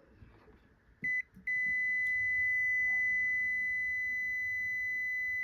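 Multimeter continuity beeper: a brief chirp about a second in, then a steady high beep from about a second and a half on, signalling continuity through the battery charger transformer's primary winding.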